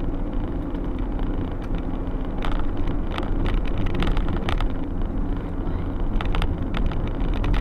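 Car driving at road speed heard from inside the cabin: steady engine and tyre noise, with a scatter of short clicks from about two and a half seconds in.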